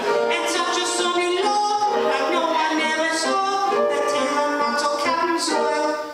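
A man singing into a microphone in long held notes, accompanied by a piano. The singing breaks off right at the end.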